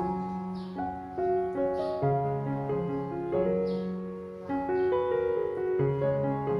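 Background music: a slow piano melody over held chords, the notes changing about once a second.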